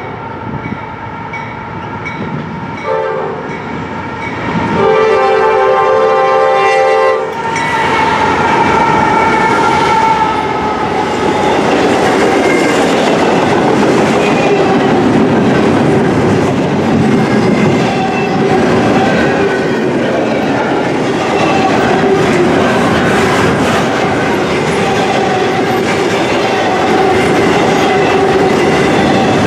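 Air horn of a Norfolk Southern GE AC44C6M diesel locomotive sounding a short blast and then a longer blast for a grade crossing. The locomotive then passes close by, followed by the steady rumble and wheel clatter of intermodal container cars rolling over the rails.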